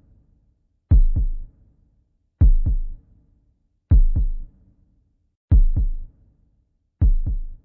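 Slow heartbeat sound effect: deep double thumps (lub-dub) repeating about every second and a half, with silence between the beats.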